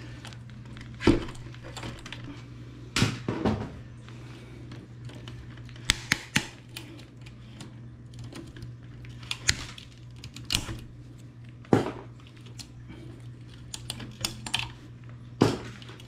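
Irregular clicks, taps and knocks of a screwdriver and pliers on the plastic and metal clamps around the neck of a projection TV's CRT tube, loosening them to free the copper deflection yoke. A few louder knocks stand out among the light clicks, over a steady low hum.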